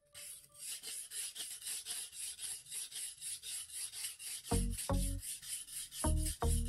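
Kitchen knife blade being stroked quickly back and forth on a wet whetstone: an even, rhythmic scraping at about five strokes a second. Background music with low notes comes in about four and a half seconds in.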